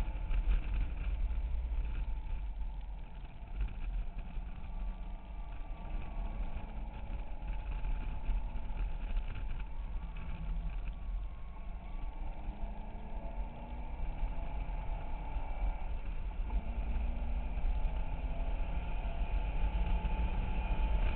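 Chevrolet Corvette Z06's 7.0-litre LS7 V8 heard from inside the cabin at track speed, its pitch climbing and falling as the driver accelerates and lifts, over a heavy low rumble. It eases off briefly twice and pulls harder near the end.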